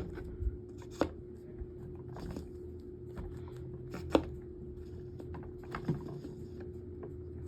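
Plastic table-fan parts being handled and fitted together during reassembly: a few sharp clicks and knocks, the loudest about four seconds in, over a steady low background hum.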